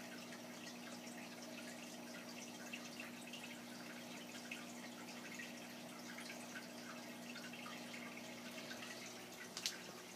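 Aquarium sponge filter bubbling: air rising up the lift tube breaks at the water surface in a constant patter of small drips and pops, over a steady low hum. One sharper tick near the end.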